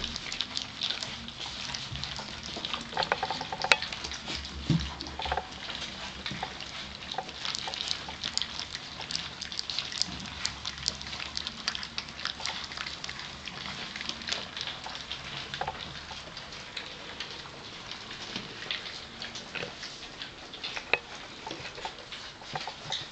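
Four-week-old Gordon setter puppies lapping and slurping soft, wet food from a plate: a continuous run of many short wet clicks and smacks.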